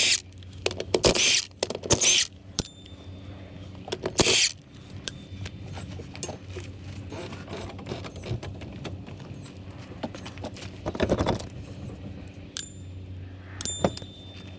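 Loosening a wheel's lug nuts with hand tools: scattered sharp metal clicks and clinks with a few brief ringing tones, broken by several short loud noisy bursts.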